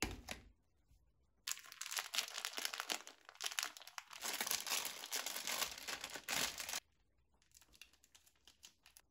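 Aluminium foil tray set down on an induction cooktop with a brief knock. Then a plastic pouch of motsu in sauce crinkles loudly for about five seconds as it is squeezed out, stopping abruptly. Fainter rustling near the end.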